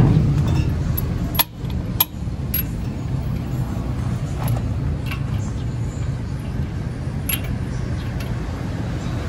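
Steady low hum of an engine running, with scattered sharp metallic clinks as wheel nuts are handled and threaded onto the studs of a truck wheel.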